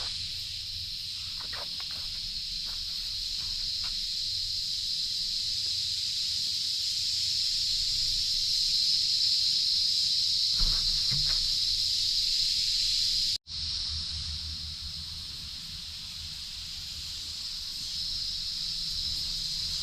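Steady, high-pitched insect chorus droning in forest. It drops out for an instant about 13 seconds in, then carries on.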